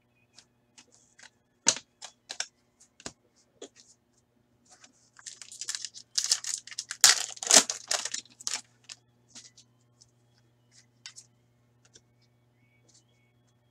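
A few sharp clicks and taps of cards being handled, then, about five seconds in, a foil hockey-card pack wrapper torn open by hand, crinkling loudly for several seconds. Light crinkles and ticks follow as the cards are slid out.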